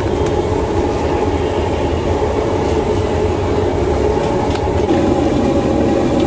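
A loud, steady low roar of street-stall noise, with bread deep-frying in a wide pan of oil over a gas burner. A few faint clicks come through it.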